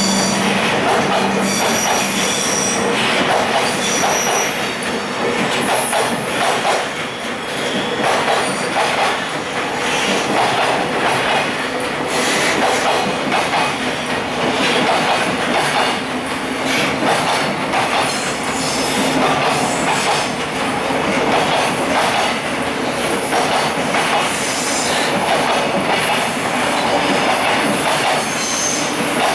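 Freight train of container flat wagons rolling past, steel wheels clacking over rail joints, with now and then a high wheel squeal.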